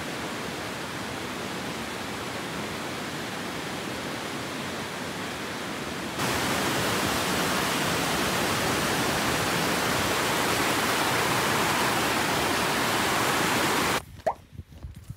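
Steady rush of a mountain creek over rocks; about six seconds in it gets louder as a waterfall cascading onto rocks takes over. Near the end the water sound cuts off abruptly, leaving quieter footsteps crunching on scree.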